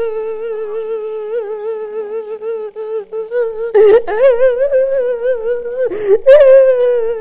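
A man's voice holding long drawn-out, slightly wavering tones in tongues-style prayer, with no clear words. It breaks off briefly twice, at about four and six seconds in, and the second stretch sits a little higher.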